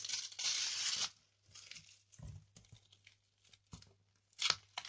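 Clear plastic packaging crinkling and rustling as it is handled, loudest for about half a second near the start, then lighter scattered rustles with a couple of soft knocks.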